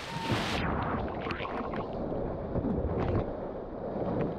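Water splashing and churning as an Asian elephant thrashes in a pool, spray crashing over a camera at water level. The sound turns duller about half a second in.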